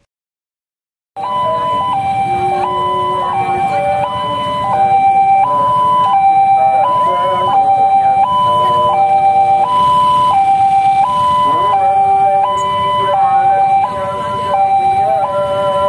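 Railway level-crossing warning alarm sounding a steady electronic two-tone signal that alternates between a higher and a lower note about every 0.7 s, with the barrier down for an approaching train. It starts about a second in, after a brief silence.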